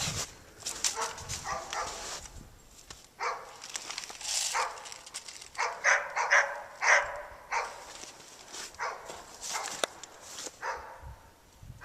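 Dogs barking in several bouts of short barks, with a few sharp clicks between them.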